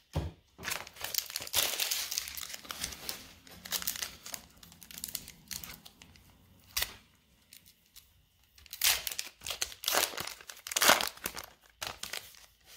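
Foil wrapper of a Pokémon trading card booster pack crinkling and tearing as it is opened by hand, in irregular bursts, with one sharp click about seven seconds in. The wrapper rustles as the cards are slid out.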